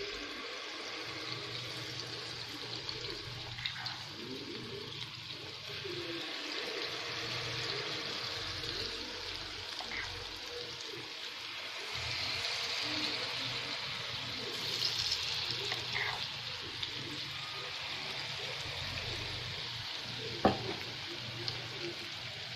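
Carrot malpua batter deep-frying in hot oil: a steady sizzle that grows a little louder about halfway through as more batter goes in. A single sharp knock sounds near the end.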